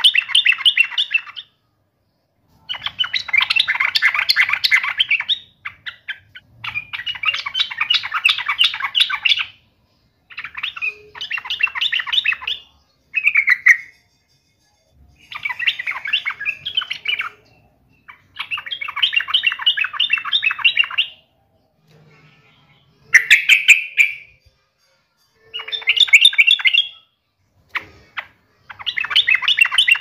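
Yellow-vented bulbul (trucuk) singing in repeated bursts: about ten phrases, each a fast run of notes lasting one to three seconds, with short pauses between them.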